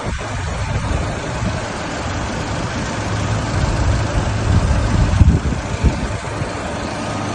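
A vehicle engine running with a steady low hum under loud, continuous rushing noise, with a few low thumps about five seconds in.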